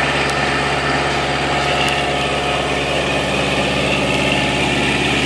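Kubota L4600 tractor's diesel engine running steadily at about 2,000 rpm, driving a 12-inch water pump through its PTO and under light load.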